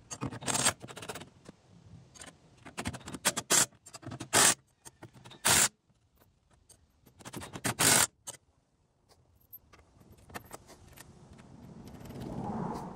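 Irregular metallic clinks, rattles and short scrapes of hand tools and bolts on a steel front hitch-receiver mount as it is bolted up. A duller rustling swell comes near the end.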